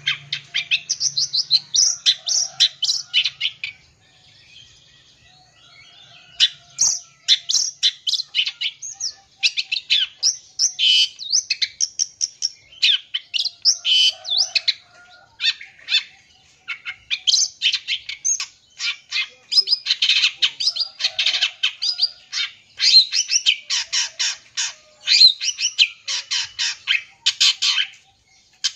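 Long-tailed shrike singing a fast, varied song packed with imitated calls of other birds: rapid strings of high chirps and trills, with a short lull about four to six seconds in.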